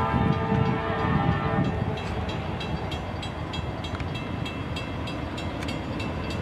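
A diesel freight locomotive's air horn sounds a steady multi-note chord over the low rumble of the train and cuts off about two seconds in. After that a bell rings steadily at about four strokes a second over the continuing rumble.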